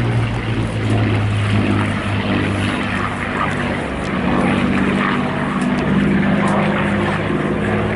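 Piston-engined WWII fighter aircraft flying past in an air show display, a steady propeller-engine drone whose pitch shifts as it passes.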